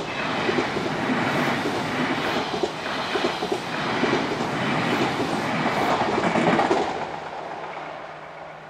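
Odakyu Line electric train passing, its wheels clattering over the rail joints. The sound builds at the start, holds for about seven seconds, then fades away.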